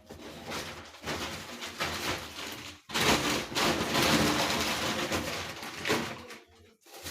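Plastic shopping bag and packaging rustling and crinkling as groceries are lifted out, loudest for about three seconds from three seconds in.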